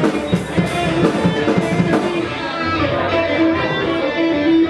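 Live rock band playing, with electric guitar and drum kit. Cymbals tick evenly for the first couple of seconds, then the guitar holds a long sustained note.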